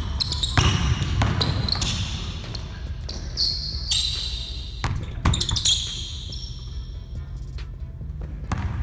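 Basketball dribbled and bouncing on a hardwood gym floor, with sneakers squeaking in short, high-pitched chirps several times as the players cut and drive.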